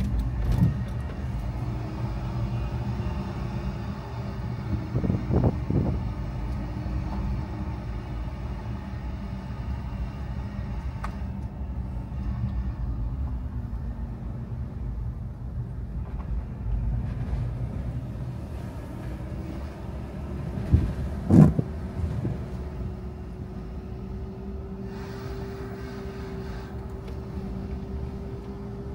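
Car on the move: a steady low engine and road rumble, with the engine note rising and falling as the car changes speed. A few sharp knocks sound about five seconds in and again about twenty seconds in.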